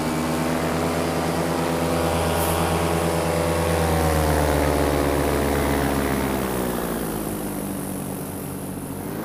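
Paramotor engine and propeller running in flight, with a rush of air. The engine note rises slightly about four seconds in, then drops and softens near the end.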